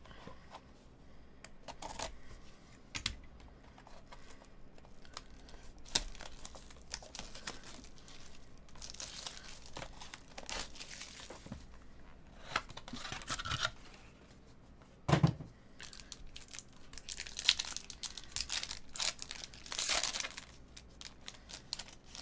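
Clear plastic wrap on a trading card box crinkling and tearing as it is stripped off, then a foil card pack being torn open. Irregular crackles come in flurries, with one sharp thump about two-thirds of the way through.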